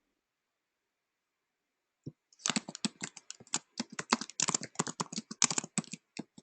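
Rapid typing on a computer keyboard, a quick run of key clicks starting about two seconds in.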